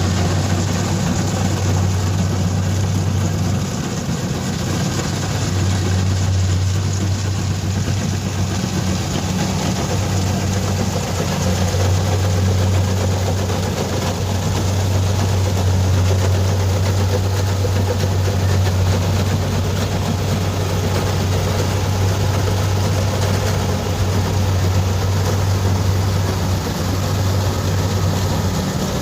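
Kubota DC-70 Plus combine harvester's diesel engine running steadily while it harvests rice, a deep drone with the noise of the machine working over it. The level dips briefly about four seconds in.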